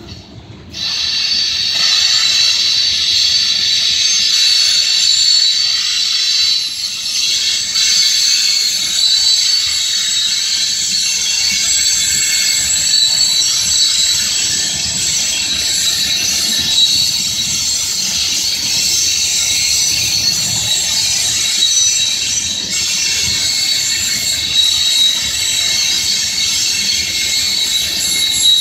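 Freight train's covered hopper cars rolling past with their wheels squealing: a loud, steady, high-pitched squeal in several close tones that starts suddenly about a second in, over the lower noise of the wheels on the rails.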